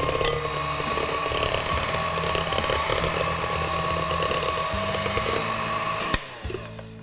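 Electric hand mixer running steadily with a whirring whine, beating eggs while melted chocolate and butter are poured in. It switches off abruptly about six seconds in.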